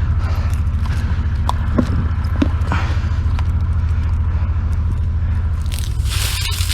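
Drain-jetting machine's engine and high-pressure pump running steadily with an evenly pulsing low drone, with a few small clicks and knocks. About six seconds in, a loud steady hiss sets in.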